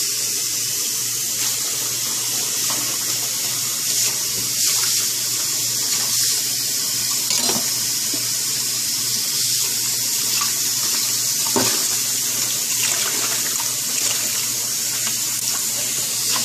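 Cold tap water running steadily over freshly blanched crown daisies being rinsed in a pot, with a few light knocks against the pot. This rinse stops the cooking so the greens stay only lightly cooked.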